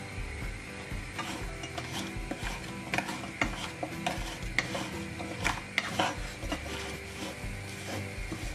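Wooden spatula stirring hard lumps of jaggery in a nonstick pan: irregular scraping with sharp clicks and knocks as the spatula and chunks strike the pan, the loudest about halfway through.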